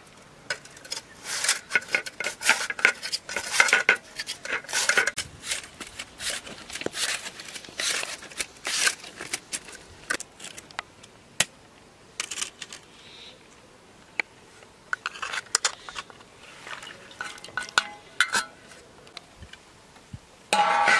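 Potato being sliced on a flat stainless steel slicer over a steel plate: repeated scraping strokes across the blade, with metallic clinks, coming in irregular runs that pause and quieten around the middle.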